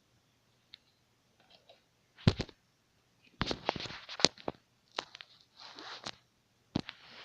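Sharp plastic clicks and knocks from a router being handled as its antennas are taken off, with a tight run of clicks about halfway through and a brief scratchy rub near the end.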